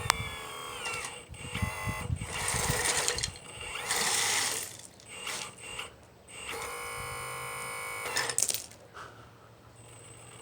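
Electric motor and hydraulic pump of a large-scale RC model machine whirring in a series of short bursts of changing pitch, with one longer steady whine about seven seconds in, fading out a second or two before the end.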